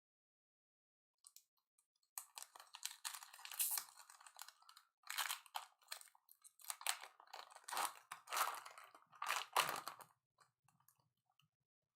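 A foil trading-card pack wrapper crinkling and tearing as it is opened by hand. It comes as irregular crackly rustles starting about two seconds in and stopping near the end.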